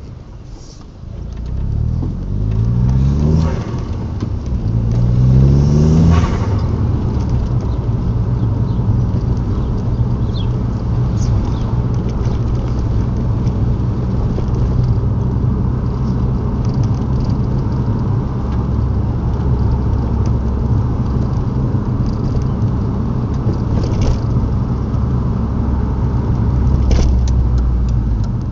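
2003 VW Golf GTI's 1.8-litre turbocharged four-cylinder engine revving up twice in the first six seconds, each rise ending in a short hiss, then running on at a steady pitch.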